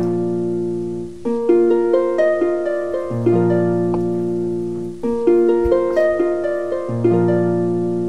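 Background music of plucked string notes playing a short melodic phrase that repeats about every two seconds.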